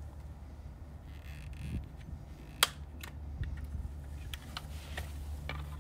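Hand cutters snipping the plastic retaining clips of a trim panel: one loud sharp snap a little over two and a half seconds in, then several lighter clicks. A steady low hum runs underneath.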